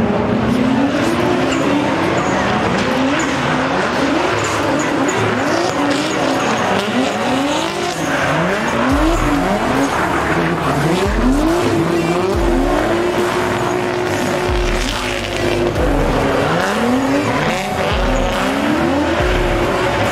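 Drift cars sliding sideways. Their engines rev up and drop back over and over, roughly once a second, with one longer held rev partway through, over the squeal of the spinning rear tyres.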